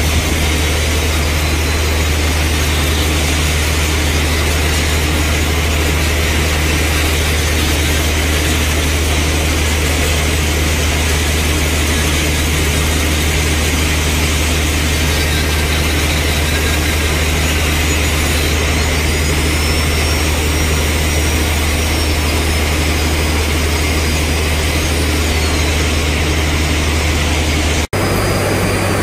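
Handheld grinder running steadily while grinding the carbide buttons of a borewell button drill bit. A constant hiss of grinding sits over a low steady hum. It drops out for an instant near the end.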